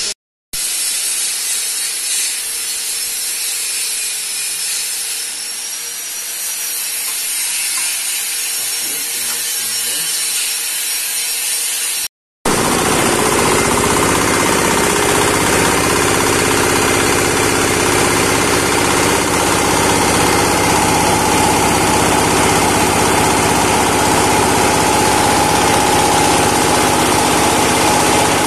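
A steady hiss for about twelve seconds. Then, after a brief dropout, a belt-driven rice husk and corn cob grinder (a hammer mill for making feed bran) runs loud and steady, its hopper loaded with rice husks.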